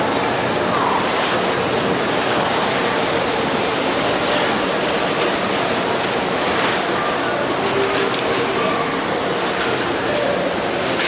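Steady rushing hiss of skis sliding over snow, mixed with wind on the moving camera's microphone.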